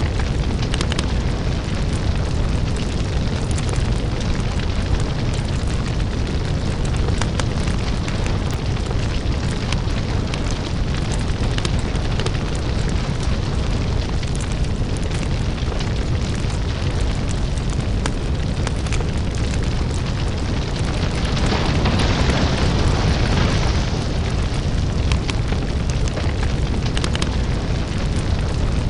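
Crackling lava fire ambience: a steady deep rumble with dense crackles and pops throughout. A louder hissing swell rises about three quarters of the way through and lasts a couple of seconds.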